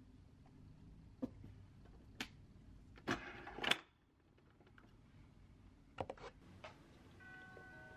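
Light clicks and knocks of objects being handled on a shelf, with a short scraping rustle about three seconds in. A few faint steady tones come in near the end.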